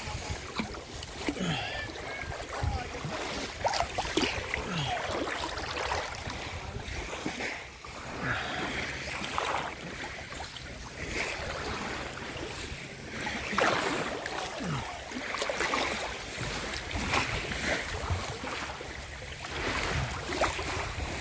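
Shallow seawater lapping and sloshing close to the microphone, in irregular surges and small splashes.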